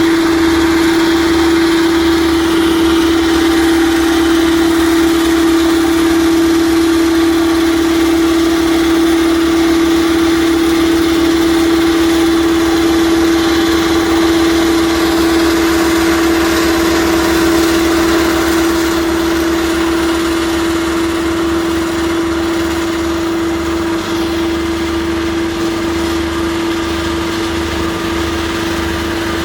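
Heavy construction machine's engine running steadily, with a strong unchanging hum over mechanical noise, easing slightly in level about two-thirds of the way through.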